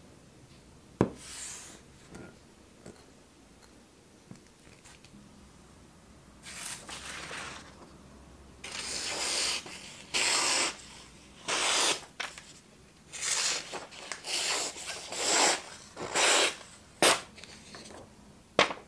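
Freshly sharpened cleaver blade slicing through a sheet of paper in a series of short cuts, testing the edge's sharpness. Sharp clicks come about a second in and twice near the end.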